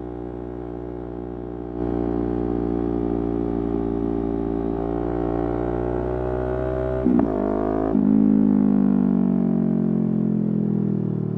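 Yamaha R3's parallel-twin engine under way. The throttle opens about two seconds in and the revs climb slowly, there is a quick gear change about seven seconds in, and then the revs fall steadily as the bike slows.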